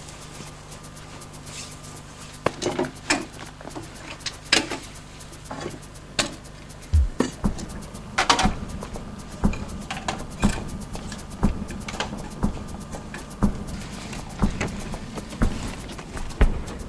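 Scattered knocks and rustles, then from about seven seconds in a slow, steady drum beat, one low thump about once a second, over a faint steady hum.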